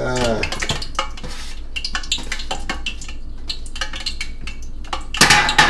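Kitchen utensils and cookware clinking, knocking and scraping against pots, pans and bowls as food is moved between them: a run of small knocks with a louder, noisier burst near the end, over a low steady hum.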